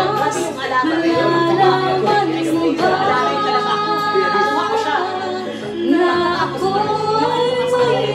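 A woman singing a melody into a handheld karaoke microphone over a karaoke backing track, with long held notes and a steady, stepping bass line.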